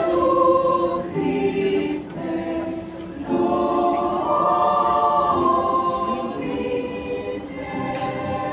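Children's choir singing held notes in several voice parts, in phrases with short breaths between them.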